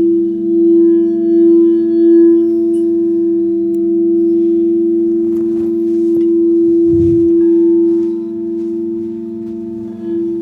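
Singing bowls ringing in long sustained tones: two low notes hold throughout with a slow wavering pulse, and a higher note joins about seven and a half seconds in. A brief low thump comes about seven seconds in.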